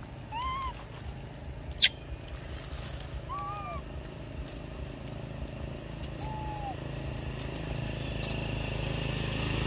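Long-tailed macaques giving short arched coo calls, three of them a few seconds apart. There is one sharp click about two seconds in. A low engine drone grows louder near the end.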